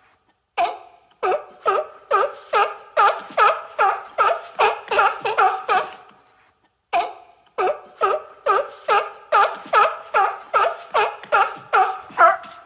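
A seal calling in a rapid series of barks, about three a second, in two long runs with a short pause about six seconds in.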